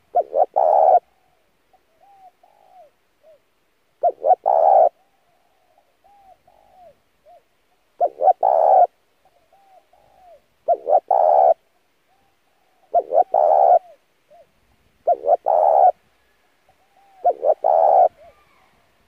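Spotted dove cooing: a loud phrase of two quick short notes and a longer note, repeated seven times about every two seconds, with fainter short curved calls between the phrases.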